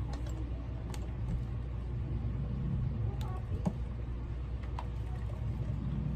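A few light clicks and taps as a compact film camera and an alarm clock are handled and set down on a shelf, over a steady low hum.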